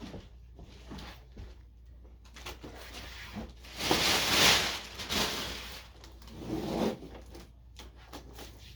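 Scraping and rustling handling sounds with scattered small knocks, loudest for about a second around four seconds in, with a shorter burst near seven seconds.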